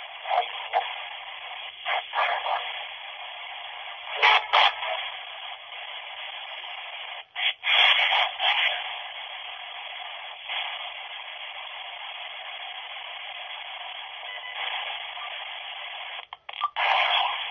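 A recording played back through a Nokia flip phone's small speaker: steady radio static and hiss from an S-Box spirit box sweeping through stations, broken by short loud crackly bursts about four seconds in, around eight seconds in, and near the end.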